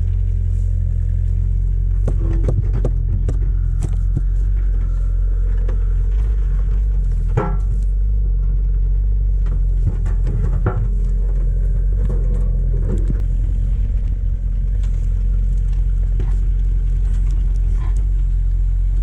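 Excavator's diesel engine running steadily, with scattered knocks and cracks over it as it works at an uprooted tree stump.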